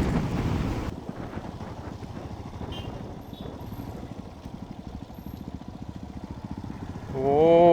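Single-cylinder motorcycle engine running at low speed, heard from the rider's own bike, with a steady, even pulse. Wind on the microphone makes it louder for about the first second, then it settles quieter.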